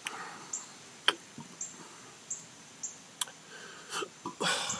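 A man hiccuping a few times, with short sharp catches and breathing in between, brought on by the heat of a hot chili pepper he is eating.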